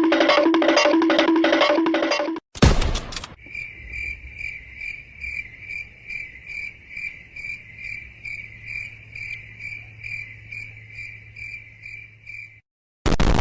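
Stock sound effect of crickets chirping, an even rhythm of about two high chirps a second that stops cleanly near the end, the meme effect for awkward silence. It is preceded by a couple of seconds of a repeating beeping musical jingle and a short noisy burst.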